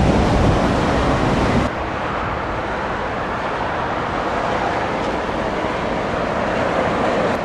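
Scania V8 diesel truck running on the road, a dense steady engine and road noise that turns suddenly quieter and duller about two seconds in.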